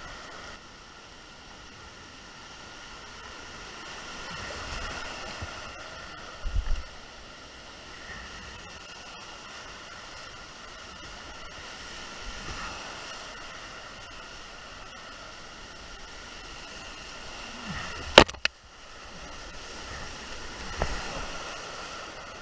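Rushing whitewater of a flooded creek in spate, a steady rushing noise heard from a kayak running the rapids. A brief low thump comes about six seconds in, and a single sharp knock, the loudest sound, comes late.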